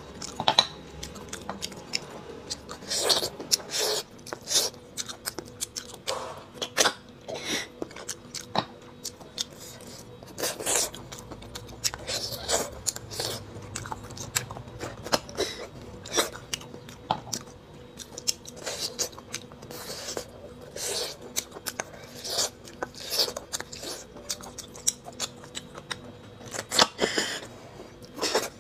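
Close-up eating sounds of a person sucking and chewing bone marrow from short bone sections: wet smacks, slurps and clicks at uneven intervals, some loud.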